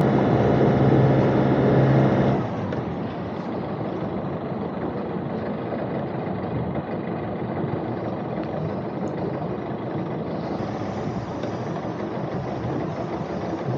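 Sailing yacht's auxiliary engine running at raised revs with a steady, even note, then throttled back about two seconds in to a quieter, steady run.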